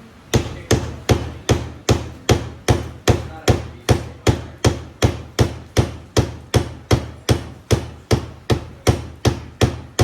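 A hammer striking over and over in a steady, even rhythm of about two and a half blows a second, each blow sharp with a short ring after it.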